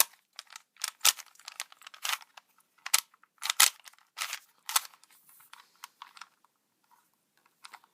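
Rubik's cube being turned by hand: irregular sharp plastic clicks and clacks as its layers are rotated, fewer near the end.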